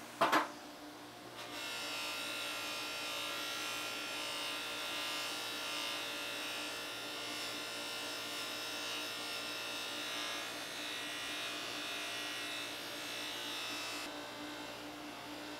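Electric drill running a polishing wheel that buffs an aluminium silencer: a steady motor whine with a hiss of the wheel rubbing on the metal. The hiss gets louder about a second and a half in and drops away near the end, leaving the motor hum.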